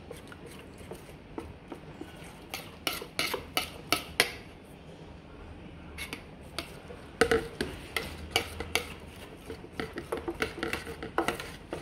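A metal spoon stirs and scrapes thick raw corn pap paste in a stainless-steel bowl, breaking up small lumps, with irregular clinks of the spoon against the bowl's side. There is a brief lull a little past the middle.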